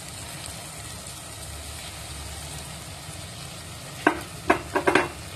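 Egg and tomato mixture sizzling steadily in a hot nonstick pan, with a little water just poured in. A quick run of about five sharp knocks comes near the end.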